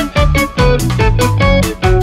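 Background music with quick, evenly spaced notes, about four a second.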